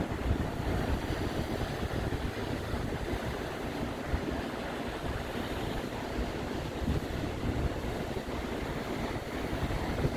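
Wind buffeting the microphone in uneven gusts over the steady wash of lake waves against the rocky shore.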